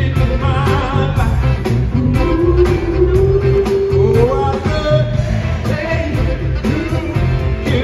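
Live pop band with drums, electric guitars and keyboards playing over a steady beat, with a male lead singer who holds one long note through the middle that rises at its end.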